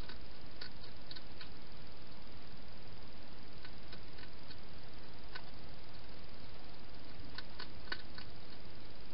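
A hedgehog eating at a food dish: small clicks and crunches of chewing in a few short clusters, over a steady hiss.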